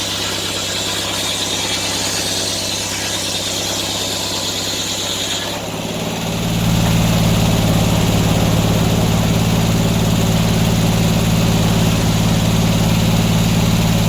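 Sawmill engine running under a sawing cut through an oak log, with a high steady hiss of the blade in the wood. About five and a half seconds in, the cutting sound stops, and the engine settles into a louder, steady low hum.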